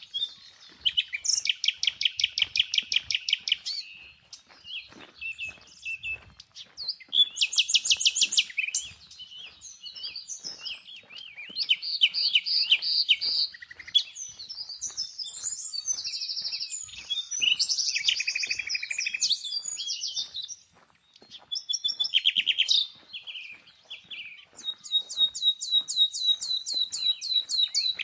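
Songbirds singing in repeated phrases of a few seconds each: rapid high trills and chirps, with two or more birds overlapping at times.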